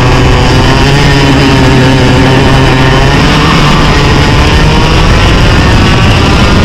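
Two-stroke racing kart engine running at high revs, loud and continuous, its pitch wavering up and down slightly as the throttle varies.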